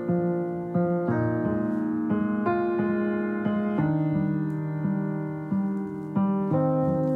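Background music on electric piano: held chords and melody notes, with a new note or chord struck every half second or so.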